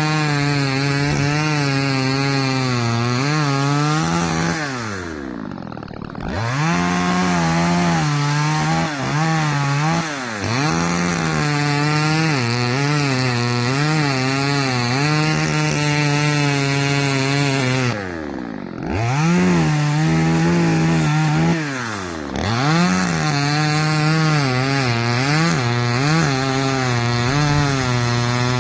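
Gasoline chainsaw running at full throttle and cutting pine, its engine pitch wavering as it bogs under load in the cut. It drops to idle twice, about five seconds in and again near the middle, then revs back up.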